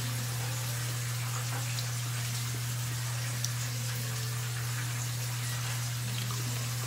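Chicken frying in hot oil: a steady crackling sizzle with scattered small pops, over a steady low hum.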